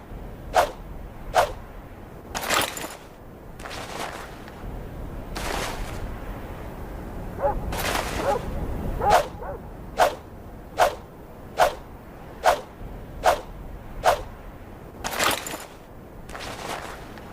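Yatagan sword sound effects: short, sharp strikes repeating a little more than once a second, broken by several longer swishes of the blade through the air.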